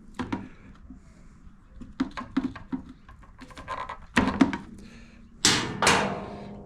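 Scattered clicks and knocks of a small screwdriver and metal fuel-line clamp against the plastic fuel tank fittings of a backpack blower, with a few louder scraping clatters about two-thirds of the way through.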